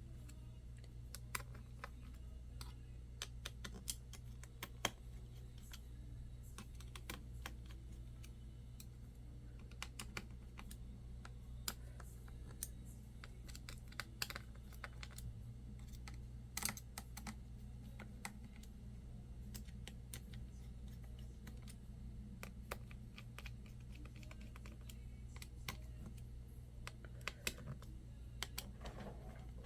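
Faint, irregular small clicks and ticks of a small screwdriver and screws being tightened into a laptop's fan and cooling-system mounts, over a steady low hum.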